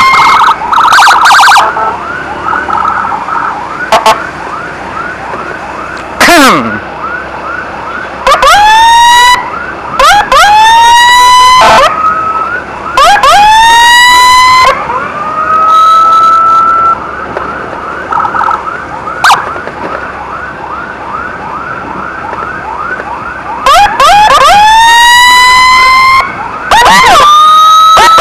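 Emergency sirens from an ambulance and its motorcycle escort: repeated loud whoops that each climb for about a second and then hold a high tone, over a quieter fast yelping siren that runs throughout.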